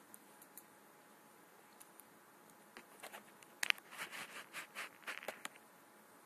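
Cardboard phone box being handled in the hand: scattered faint ticks, then about three seconds in a sharp click followed by two seconds of crackly rubbing and scraping.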